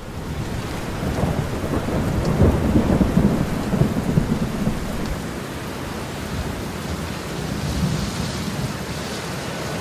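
Thunderstorm: a low rumble of thunder over steady rain. The rumble swells about one to four seconds in, then settles into an even rain hiss.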